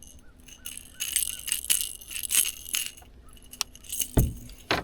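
A small spotted bass splashing and thrashing on the line as it is reeled in on a topwater popper: a run of sharp, bright splashes and rattles, then two heavy thumps near the end.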